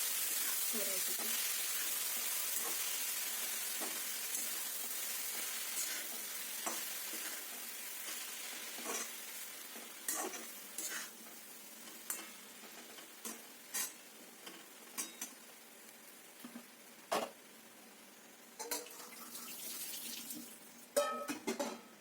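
Food sizzling in hot oil in a kadhai as it is sautéed, the sizzle slowly dying down. A spatula scrapes and taps against the pan, at first now and then and more often toward the end.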